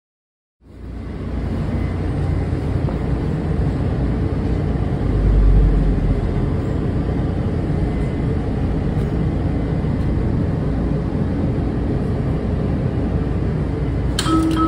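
Washington Metro railcar running on the track, heard from inside the car as a steady low rumble of wheels and running gear that starts suddenly about half a second in. A brief higher tone sounds near the end.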